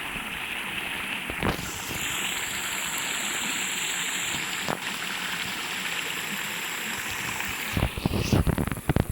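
Steady rushing noise, like running water. A thin high tone rides over it from about two to four and a half seconds in, and irregular knocks come near the end.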